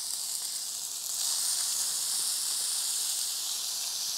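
Beef steak sizzling in a hot cast-iron pan as a steady hiss. About a second in the sizzle grows louder as butter goes into the pan.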